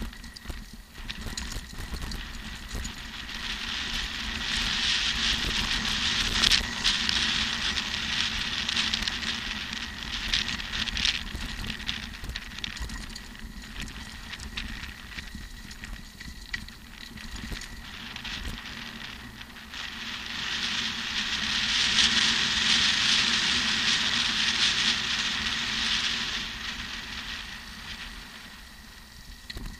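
Mountain bike descending a steep, stony dirt track: the frame rattles and the tyres crunch over loose rocks, with a rushing noise that swells twice as the bike picks up speed.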